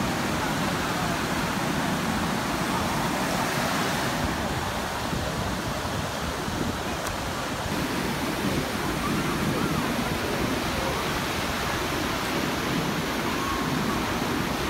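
Ocean surf breaking and washing up a sandy beach: a steady rush of waves and foam.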